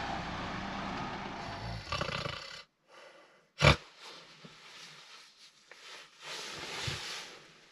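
Intro music cuts off about two and a half seconds in. A single sharp knock follows about a second later, then faint shuffling and a long sleepy breath from a man waking in bed.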